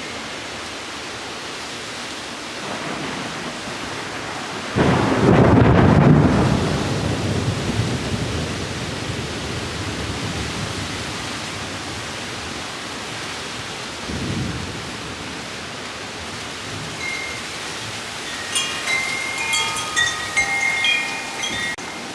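Steady rain with a sharp crack of thunder about five seconds in that rumbles away over a few seconds, and a softer rumble of thunder about fourteen seconds in. Wind chimes ring at several pitches near the end.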